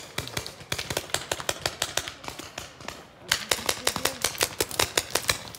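Paintball markers firing in rapid strings of sharp pops, several a second, with a lull of about a second around the middle before a faster, louder volley.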